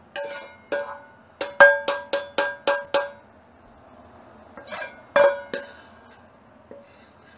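A metal wok ladle knocking and scraping against the inside of a black wok, leftover scrambled egg being cleared out. The ringing metallic clanks come as two strikes, then a quick run of about seven at roughly four a second, then after a pause three or four more.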